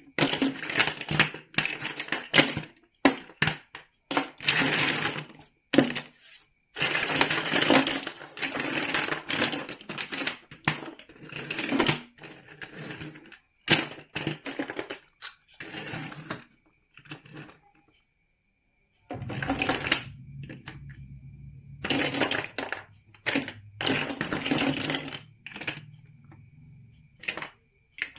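Plastic building bricks clicking, clattering and snapping together in quick irregular runs, broken by a few short silences. A faint low hum sits underneath during the last third.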